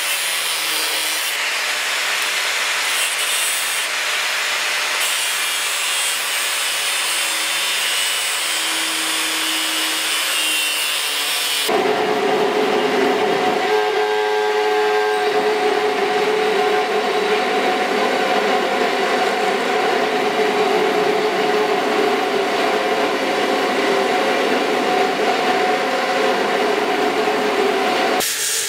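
Angle grinder cutting steel, a steady high grinding hiss. About twelve seconds in it cuts abruptly to a belt grinder running with a steady hum while a small steel part is ground against the belt.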